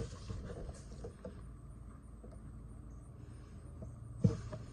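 Quiet background with a few faint handling ticks and one sharp tap or knock near the end.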